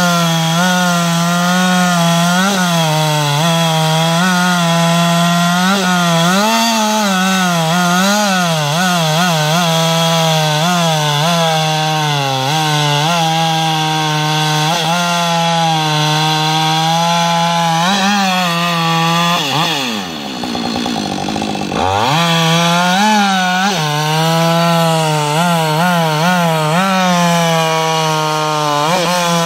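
Husqvarna 562 XP two-stroke chainsaw running at full throttle, its chain cutting through a large log, the engine note wavering up and down as the cut loads and unloads it. About twenty seconds in the engine speed drops away sharply, then revs back up to full speed and carries on cutting.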